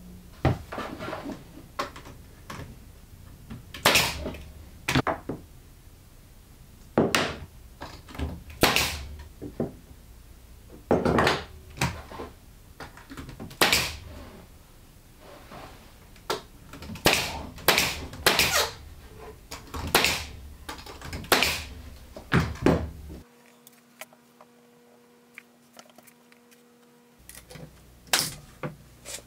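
Pneumatic nailer firing into a plywood panel: a string of sharp shots at irregular intervals, often about a second apart, with a lull near the end before a few more.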